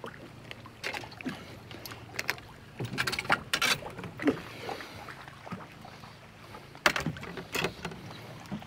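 Scattered, irregular knocks and clatter in a small fishing boat as a landing net is grabbed and handled to land a hooked channel catfish.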